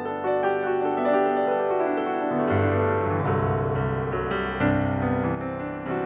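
Instrumental background music led by piano, notes struck one after another over sustained low notes.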